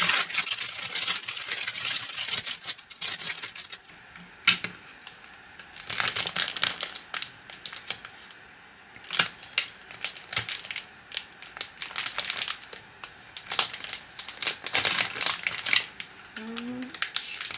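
Crinkling and crackling of a foil chip bag being handled and pressed through a small battery-powered heat bag sealer, coming in repeated bursts with short pauses between them.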